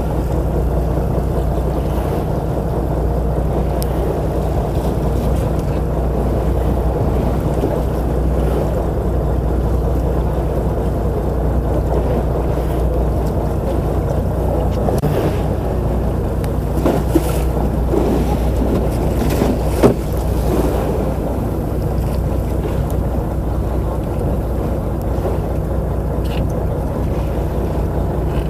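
Fishing boat's engine running steadily with a low, even hum, under wind and wave noise. Two short knocks sound a little past the middle, about three seconds apart.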